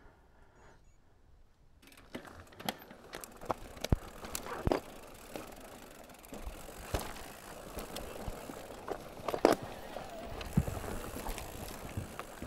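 Mountain bike being ridden over rough trail, starting about two seconds in: steady rushing tyre and riding noise with frequent sharp knocks and rattles from the bike.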